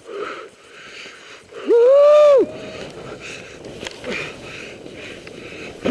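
A skier's loud, held whoop about two seconds in, rising and then falling in pitch. After it come skis running through deep powder snow, a steady rough hiss.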